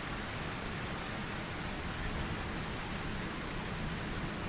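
Steady rain falling on a tropical forest, an even hiss with a faint drip about two seconds in.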